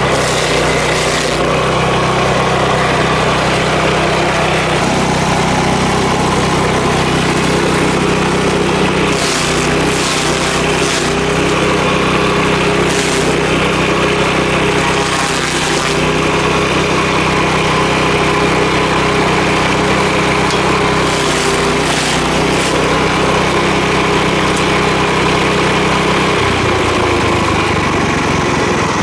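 Power King stump grinder running steadily under power, grinding a dried ash stump, with several brief rushes of higher grinding noise as the cutter wheel bites in. The engine note changes about two seconds before the end.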